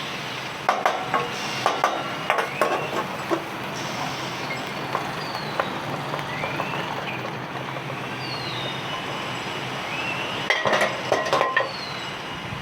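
A metal spatula clinking and scraping against a wok, in a quick cluster about a second in and again near the end, over a steady hiss from the hot pan.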